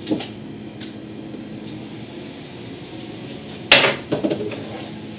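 Cardboard packaging handled on a wooden table: a few light taps, then one sharp knock a little past halfway, followed by a few softer knocks.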